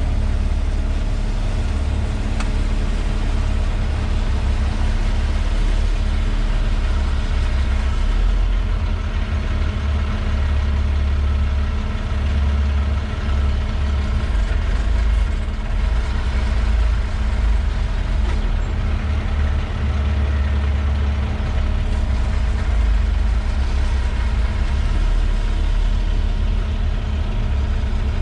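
Diesel engine of a Kubota KX080 excavator running steadily at an even speed.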